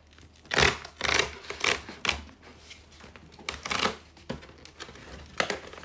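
Large cardboard shipping box being handled and opened by hand: a series of short, irregular scraping and rustling noises of cardboard.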